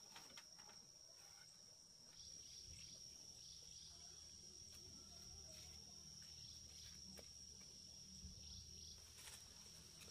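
Near silence, with a faint steady high-pitched insect trill running throughout and a low hum through the middle.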